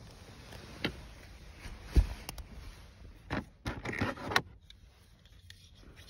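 Handling noises inside a car: scattered knocks and rattles as eyeglasses are picked up from a plastic drawer unit. A sharp thump about two seconds in is the loudest, and a quick cluster of rattly knocks comes near four seconds.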